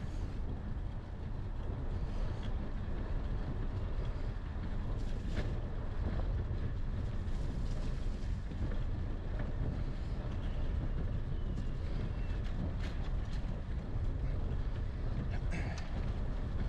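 Steady low rumble of wind buffeting the microphone of a moving bicycle, mixed with its tyres rolling along a tarmac path, with a few faint clicks.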